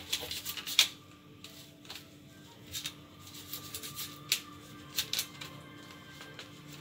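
Kitchen knife tapping and clicking against a cutting board while a tilapia fillet is cut into small pieces: a quick run of taps in the first second, then a few scattered ones.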